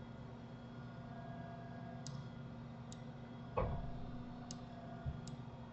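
Computer mouse button clicking, four sparse single clicks over a faint steady hum, with one short dull thump a little past the middle.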